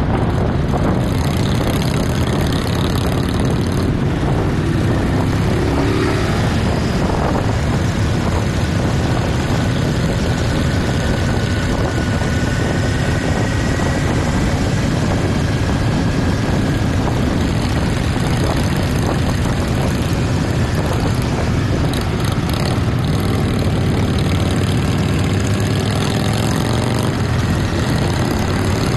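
Motorcycles running steadily at road speed, heard from one of the bikes: a continuous engine drone mixed with wind rushing over the microphone.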